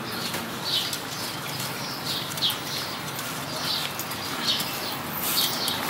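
A small bird chirping repeatedly, short high chirps coming every half second or so, over a steady background hiss. There are a few faint light clicks, likely the steel spokes being handled in the wheel's hub and rim.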